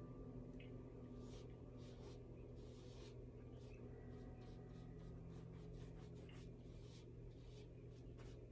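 Faint, scratchy strokes of a paintbrush on canvas, short and irregular, over a low steady hum.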